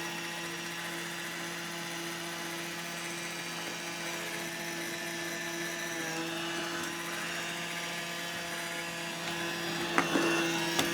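Roomba robot vacuum running: a steady motor and brush whine, with a couple of sharp knocks near the end.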